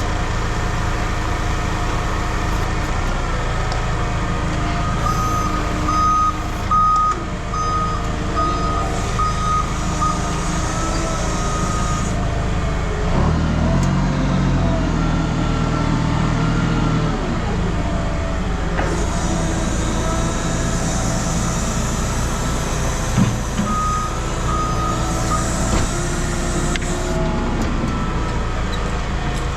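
A heavy vehicle's engine running throughout, with a reversing alarm giving a series of evenly spaced beeps for several seconds and again briefly near the end. Partway through the engine note changes and grows heavier for a few seconds.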